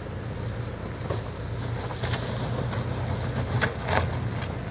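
Toyota 4Runner TRD Off-Road's 4.0-litre V6 running with a steady low hum in four-wheel-drive low as the SUV crawls up a slope of loose gravel, with a few short crunches from the tyres on the stones.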